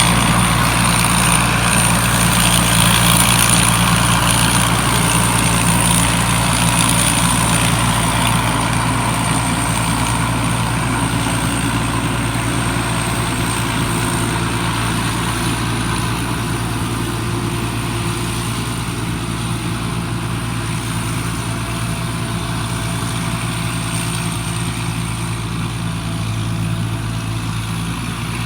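Small combine harvester's engine running steadily with a constant hum, a thin high-pitched whine above it, getting slightly quieter over the stretch.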